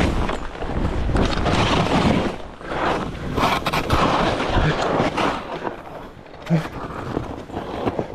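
Skis scraping and chattering over snow on a descent, with wind buffeting the microphone: a loud, rough rush broken by many sharp knocks, easing somewhat near the end.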